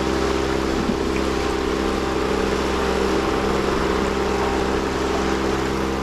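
An 8 hp high-thrust outboard motor running steadily under way, pushing the boat at about 4.5 knots, over a steady hiss.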